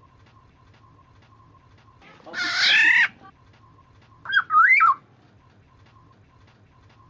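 Black-naped oriole calling twice: a harsh, rasping call lasting under a second about two seconds in, then a short fluted whistle that jumps up and down in pitch about four seconds in. Faint even ticking runs beneath, about four a second.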